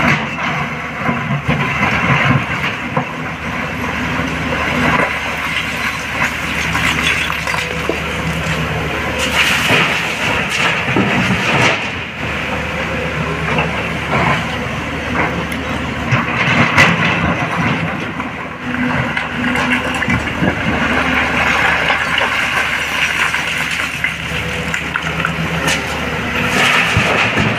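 Sany crawler excavator's diesel engine running under load, with the clatter and scrape of broken rock as the bucket digs and dumps into a dump truck's steel bed. Several louder rock impacts stand out over the steady engine.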